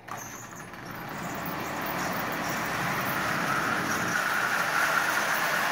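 Marx tin-lithographed toy train, a Commodore Vanderbilt locomotive pulling a long string of tin cars, rolling on tubular steel track: a steady metallic rolling rattle of many small wheels. It grows louder over the first two seconds, then holds steady.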